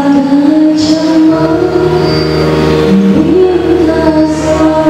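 A woman singing into a microphone over musical accompaniment, holding long notes that glide and waver in pitch.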